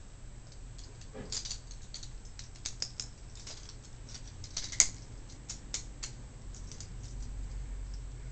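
Steel handcuffs being handled: scattered small metallic clicks and scrapes, with one sharper click about five seconds in.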